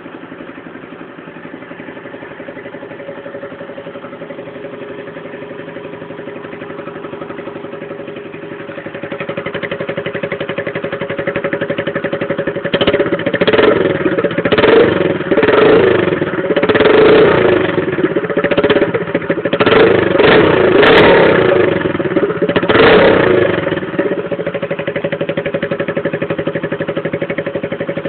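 Honda CG Fan's single-cylinder four-stroke engine, breathing through a Torbal aftermarket exhaust, idling steadily. About halfway through it is revved in a string of about ten quick throttle blips, then settles back to idle. The exhaust is loud, though the owner calls it half worn out.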